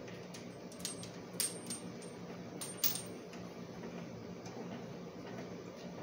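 Galvanized steel pipe fittings clinking and knocking against each other as they are handled and threaded together for a dry fit. There are a handful of sharp metallic clicks in the first three seconds, over a steady low hum.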